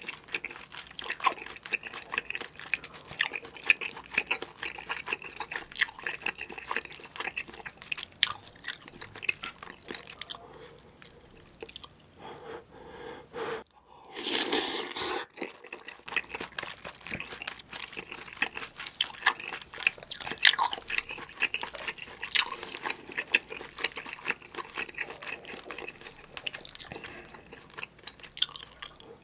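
Close-miked wet chewing and mouth sounds of someone eating soft, saucy kimchi stew with rice, full of small lip and tongue clicks and smacks. About halfway through, a louder rush of mouth noise lasting about a second as a new mouthful goes in.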